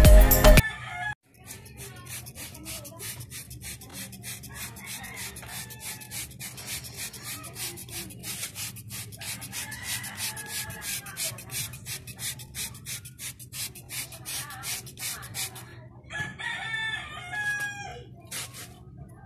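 Quick repeated scrubbing strokes of a kerosene-wetted brush against a motorcycle engine's finned cylinder and crankcase. Near the end a rooster crows.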